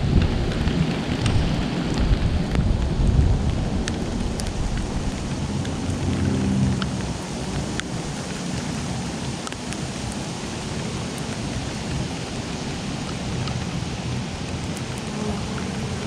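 Steady rain falling, with many individual drops ticking sharply, and a low rumble of thunder that fades away over the first few seconds.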